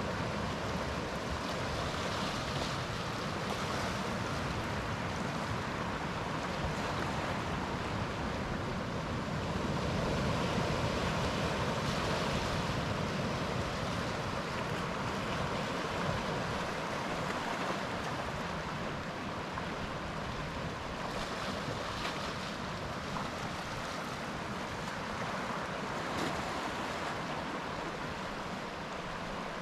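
Waves of the Celtic Sea breaking on the shore in a continuous rush of surf, swelling slightly about ten seconds in.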